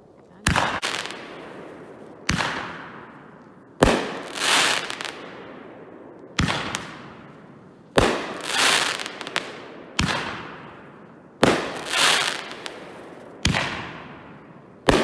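Aerial fireworks bursting one after another, about nine sharp bangs roughly every two seconds. Each bang echoes away, and several are followed a moment later by a crackling swell.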